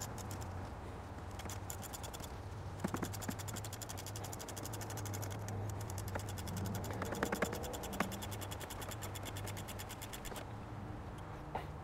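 Light scraping and a few scattered clicks of metal parts being handled in an engine bay as an oxygen-sensor bracket is worked back into place.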